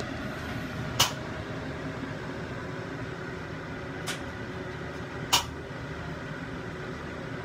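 Steady mechanical hum of a kitchen fan running, with three sharp clicks about one, four and five seconds in.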